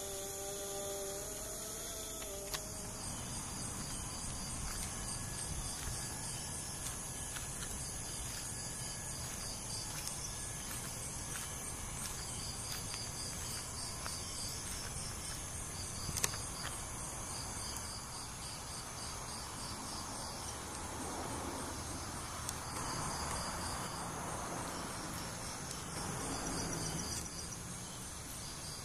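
Crickets chirping in steady pulsed trains over a constant hiss, picked up by a compact camera's built-in microphone. In the last third a soft rush of noise swells and fades.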